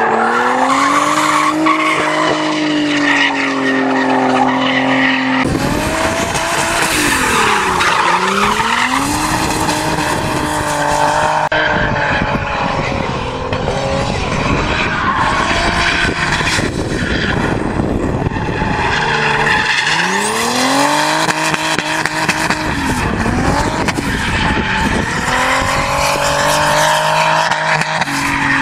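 BMW saloon drifting: its engine revs rise and fall again and again as the car slides, over tyre squeal and skidding on loose tarmac and dirt. The sound jumps abruptly a couple of times where shots are cut together.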